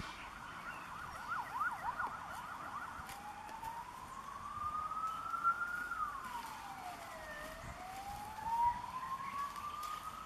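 Emergency vehicle siren: a fast up-and-down yelp for about the first three seconds, then a slow wail that rises, falls and rises again.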